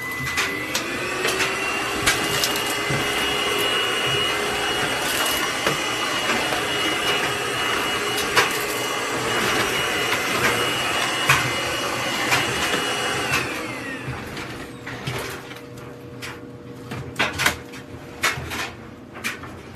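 Cordless stick vacuum running: the motor spins up with a rising whine, holds steady with scattered clicks, then winds down about thirteen seconds in. Sharp clicks and knocks follow near the end.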